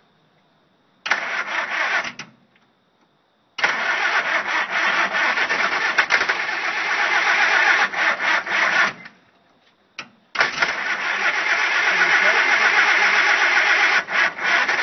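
Starter cranking an old engine in three tries without it catching: a short burst about a second in, a long one of about five seconds, then another that runs on past the end.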